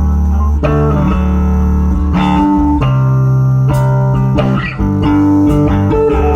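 Live instrumental desert-rock band: electric guitar and bass guitar playing held, ringing notes, with the bass heavy and the chord changing every second or so.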